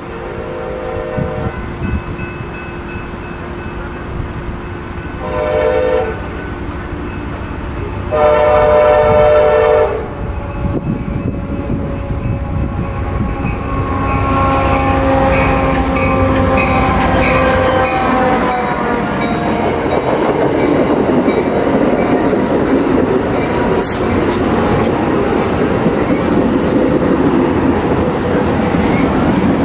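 Amtrak diesel-hauled passenger train sounding its horn as it approaches: a short blast, another about five seconds later, then a longer one. The locomotive then passes with its engine pitch falling, and the bilevel cars follow with a steady wheel rumble and clicking over the rails.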